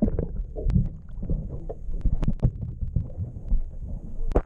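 Muffled underwater sound from a submerged camera: low sloshing rumble and knocks of water against the housing. Near the end a brighter burst of splashing and running water cuts in as it comes back out of the water.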